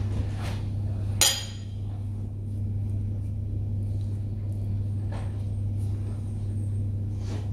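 A steel spoon gives one sharp metallic clink against the hard worktop about a second in, over a steady low hum.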